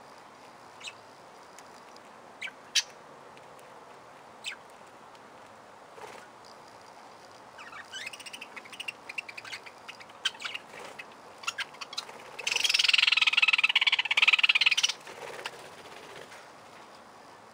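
Budgerigars calling with short, scattered chirps, then chattering more densely, and about twelve seconds in a loud, rapid chattering call that lasts a couple of seconds.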